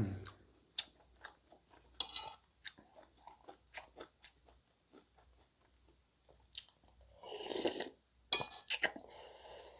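Close-miked chewing of food: wet mouth clicks and crisp crunches coming irregularly, with a longer, louder noisy stretch about three-quarters of the way in.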